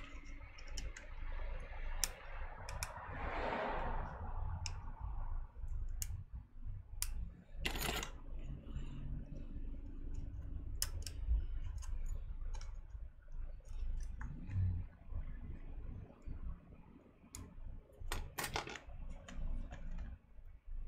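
Hands handling small parts and cables inside an opened laptop: scattered clicks and light taps of plastic and metal, with a short rustle about three seconds in and two louder clicks, about eight and eighteen seconds in.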